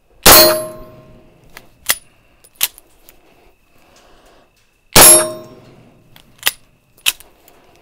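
Two suppressed 9mm shots from a B&T Station Six bolt-action pistol with a metal-baffled training suppressor, about five seconds apart. Each shot is followed by a short metallic ring. After each shot come two sharp clicks as the bolt is worked by hand to dump the spent case and chamber the next round.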